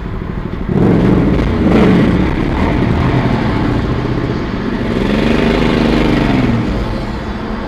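A vehicle engine revving, its pitch rising and falling twice.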